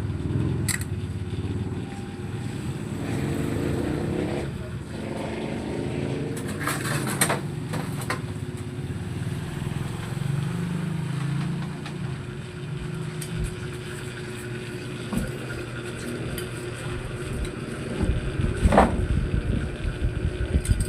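An engine running steadily with a low rumble, with a few brief metallic clinks, one about seven seconds in and a louder one near the end.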